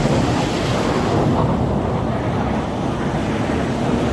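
Wind buffeting the microphone, a steady low rumbling rush with no distinct events.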